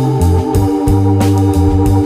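Background music led by an organ, with sustained chords, a moving bass line and a steady beat.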